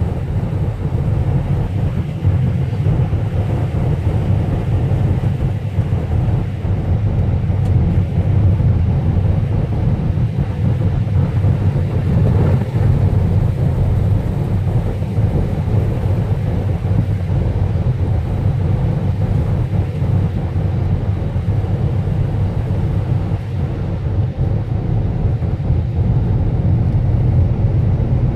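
Steady low rumble of a car driving, heard from inside the cabin: tyre and engine noise on a wet, snow-covered road.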